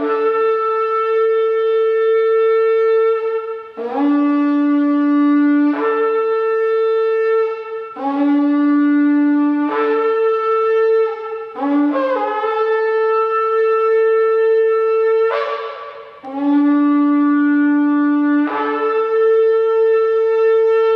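A 128 cm antelope-horn shofar blown in long held notes, switching back and forth between a low note and one about a fifth higher. Each note lasts two to four seconds, with a short break about three quarters of the way through.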